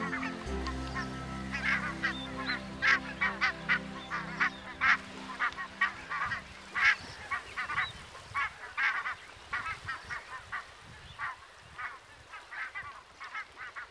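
A large flock of barnacle geese calling, a dense overlapping chorus of short calls, thinning and getting quieter in the second half.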